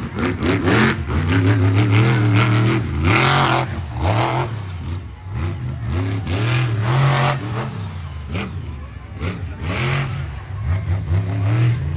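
Monster truck engine revving hard again and again, its pitch climbing and dropping with each blip of the throttle through a freestyle run, with a few short bursts of noise, the biggest about three seconds in.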